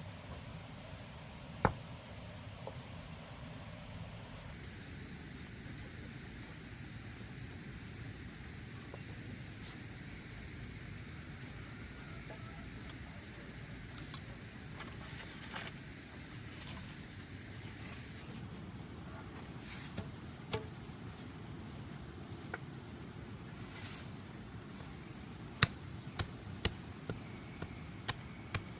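Insects, crickets or similar, keeping up a steady high-pitched drone. A few isolated sharp knocks, then near the end a run of evenly spaced knocks, about two a second.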